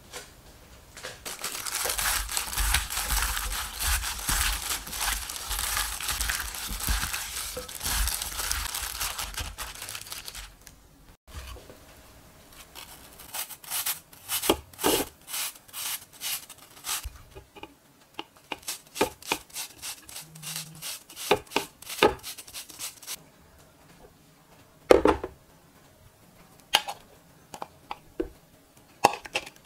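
Seasoned deodeok strips being mixed in a glass bowl, a dense rustling with soft thumps for about ten seconds. Then a piece of apple is grated on a flat grater: a run of short rasping strokes, with one sharp knock near the end.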